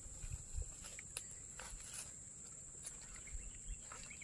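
Insects chirring steadily in one high band, with faint scattered clicks and a few soft low thuds.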